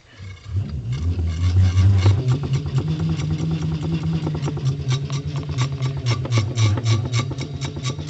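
Converted ceiling fan motor generator spun by hand, its rotor giving a low hum that rises in pitch in the first second and steps higher about two seconds in, then holds steady, with rapid, even ticking over it.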